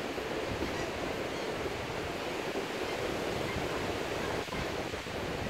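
Steady rush of surf breaking along a sandy beach, mixed with wind noise.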